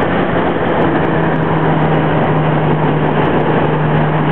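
A Lotus Elise's mid-mounted four-cylinder engine droning steadily at an even cruising speed, heard from inside the cabin over a constant rush of wind and road noise.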